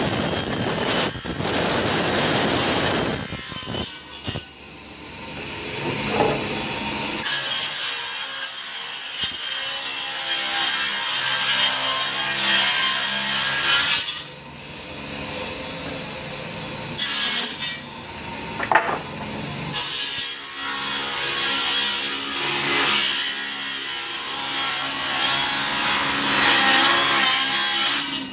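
Circular table saw ripping wooden poles in a timber mill, cut after cut. The sound drops briefly a few times between cuts.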